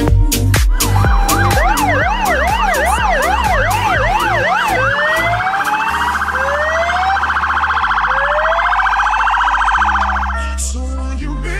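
Fire-brigade vehicle sirens over background music. A quick up-and-down yelp gives way to slow rising wails and a fast warble, and the sirens stop about ten seconds in, leaving only the music.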